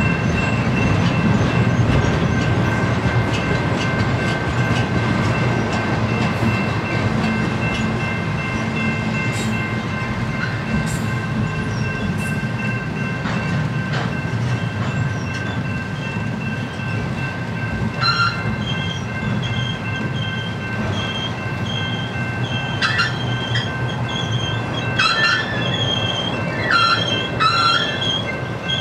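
Double-stack container train's well cars rolling past, with a steady rumble of wheels on the rail. About two-thirds of the way through, short high-pitched wheel squeals begin, and they come more often toward the end.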